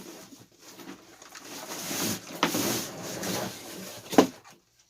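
Cardboard box and packaging being handled, rustling and scraping as the RC truck is worked out of it, with a sharp knock a little after four seconds in.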